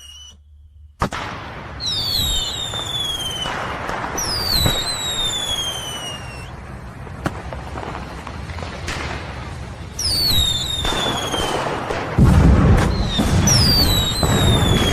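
Fireworks going off: four whistles, each falling in pitch over one to two seconds, with sharp bangs and crackling between them. It opens with a moment of quiet broken by a sharp crack, and a heavier, deeper burst comes about twelve seconds in.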